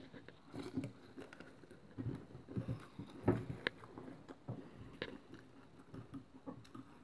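Faint, scattered small clicks and soft knocks, the loudest about three seconds in: handling noise from a phone being moved around while it films.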